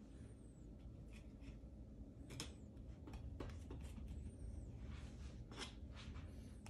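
Knife trimming hard fat off a raw brisket: a series of short, irregular slicing and scraping strokes through the fat and against a wooden cutting board.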